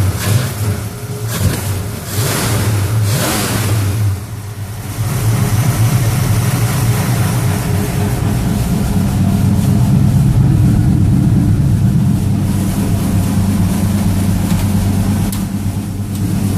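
A 1966 Mustang's 302 V8 with a factory two-barrel carburettor runs cold, shortly after a cold start at about 35 °F. The engine note swells and falls several times in the first four seconds, then settles into steady running.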